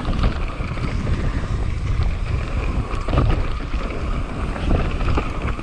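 Mountain bike riding fast down a dirt trail: wind buffeting the microphone over the rumble of tyres on loose dirt, with frequent small clicks and knocks from the bike over bumps.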